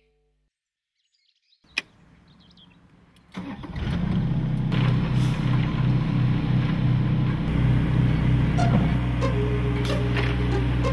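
A single click, then about three seconds in a machine starts up and runs steadily with a loud low hum and rumble.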